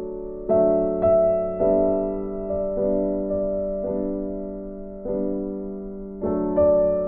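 Slow instrumental background music on piano, single notes struck about once a second, each fading away before the next.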